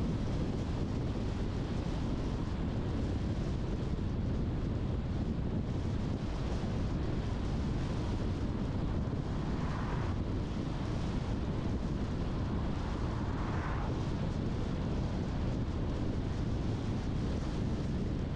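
Steady low rumble of a car driving along the road, tyre and road noise with wind. Two short swells of higher hiss come near the middle.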